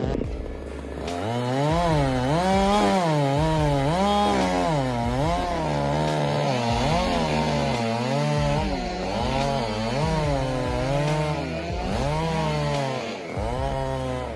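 Two-stroke chainsaw running under load while cutting wood, its engine pitch repeatedly rising and dipping about once a second as the chain bites and frees.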